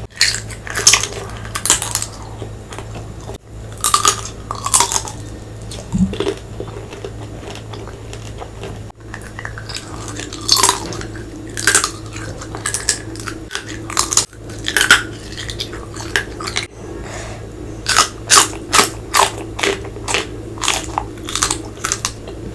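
Close-miked eating: a person chewing and biting into crunchy food, with scattered crisp crunches that come about two a second near the end, over a steady low hum.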